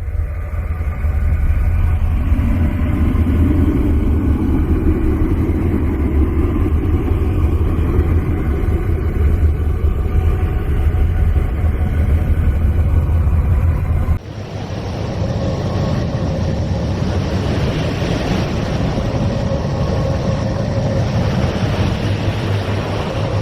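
Sonified space radio emissions: a steady, deep rumbling drone of noise. About two-thirds of the way through it cuts to a different recording, a hissing drone with a faint steady tone.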